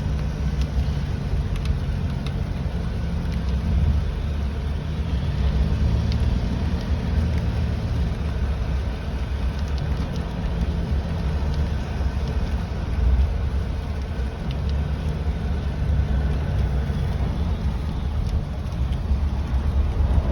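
Car interior while driving in the rain: a steady low road and engine rumble, with faint scattered ticks of rain on the car.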